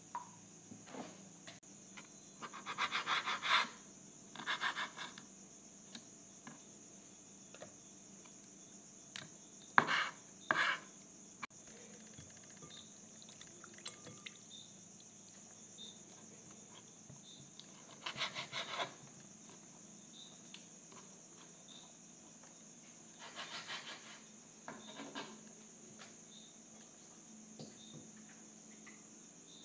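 Knife cutting and scraping raw liver on a cutting board: a few short bursts of scraping and tapping, the loudest a pair of sharp knocks about ten seconds in. A steady high-pitched trill runs underneath.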